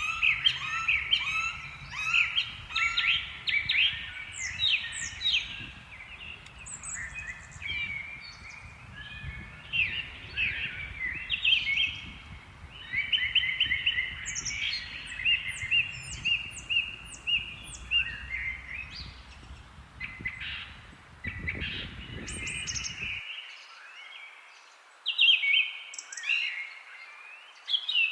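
Several songbirds singing and chirping at once in a dense chorus of overlapping trills, quick whistles and short sweeping calls. A faint low background rumble underneath cuts out suddenly about three-quarters of the way through.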